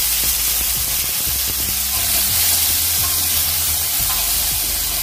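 Diced potatoes frying in hot oil in a kadai, a steady sizzle with a spatula stirring and scraping against the pan.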